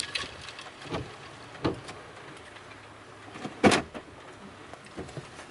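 A few separate knocks and thumps inside a car cabin, the loudest about three and a half seconds in, with faint ticking of rain on the car between them.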